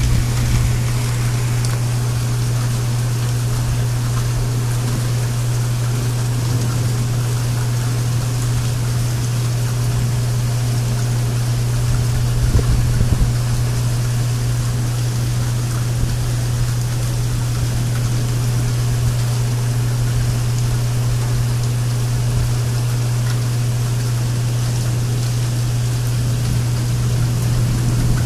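Steady heavy rain falling, with a constant low hum underneath and a brief swell about halfway through.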